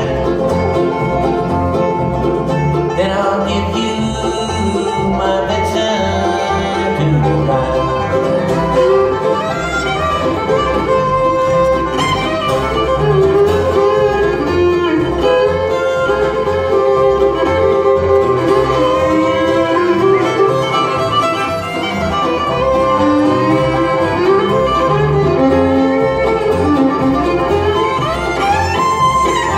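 Bluegrass band playing an instrumental break live: fiddle, five-string banjo, mandolin, acoustic guitar and upright bass, with no singing.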